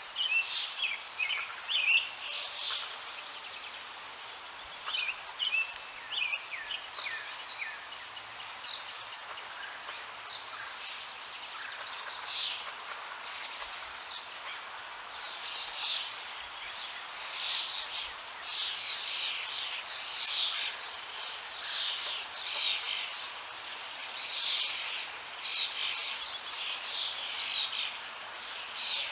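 Several birds chirping and calling in quick, short notes, thickest in the second half, over a steady rush of running water.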